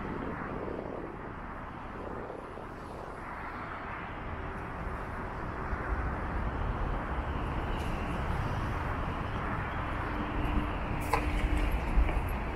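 Steady hum of city road traffic, with a few short knocks near the end.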